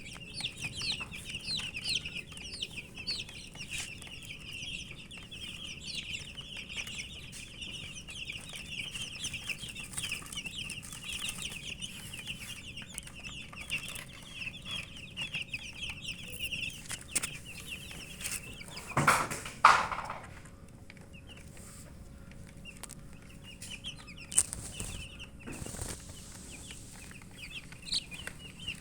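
A group of domestic chicks peeping: dense, rapid high-pitched chirps that thin out after about two-thirds of the way through. A single louder, lower call briefly stands out just before that point.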